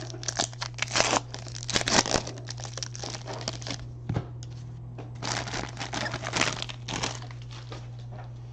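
Foil trading-card pack wrappers crinkling and tearing in irregular bursts, with a short lull in the middle, over a steady low hum.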